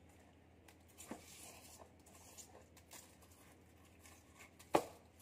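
Hands rubbing and brushing coarse salt off a whole raw fish: faint rustling with small scattered clicks, and one sharp knock near the end.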